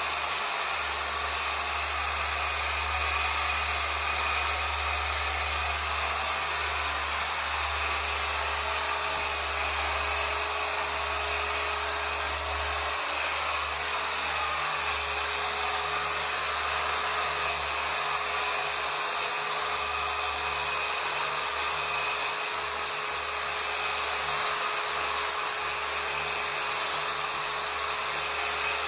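Chicago Electric 6-inch dual action orbital polisher running steadily as it scrubs cleaning solution into a mattress's fabric.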